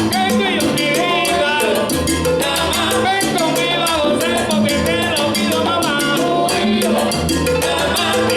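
Salsa band playing live: a full ensemble with bass, a busy percussion rhythm and wavering melodic lines.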